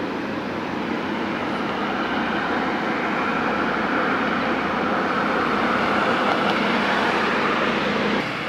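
Steady hiss and rumble of nearby passing vehicle traffic, swelling gently over the first few seconds and cutting off abruptly near the end.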